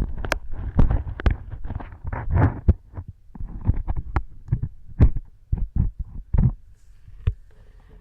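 Close-up earwax-cleaning sounds in a silicone ear model: irregular clicks, taps and short scraping rustles over deep thuds. They thin out to a few scattered clicks near the end.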